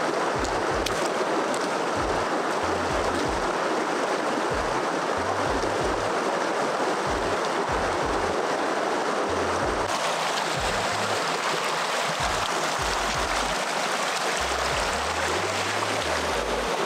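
Running stream water: a steady, dense rushing hiss. About ten seconds in the sound changes, losing some of its highest hiss.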